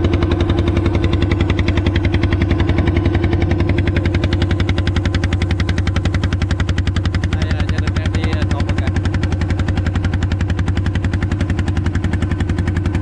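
Fishing boat's diesel engine running steadily with a fast, even chugging beat.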